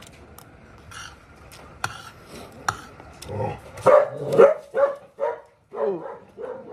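A dog barking and yelping in a quick run of short calls from about halfway in, the loudest sound here. Before that, a few light clinks of metal cutlery on a plate.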